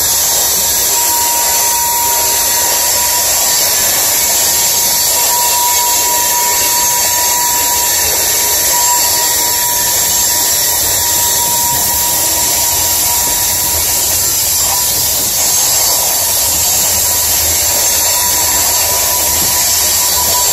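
Loaded coal cars rolling past on a curve, their steel wheels squealing and hissing continuously as they rub against the rail, with one steady squeal tone running through the noise.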